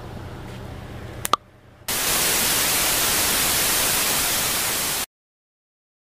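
Faint outdoor ambience, a sharp click about a second in, then loud hissing white-noise static for about three seconds that cuts off abruptly into silence. The static is an editing transition effect leading into an end card.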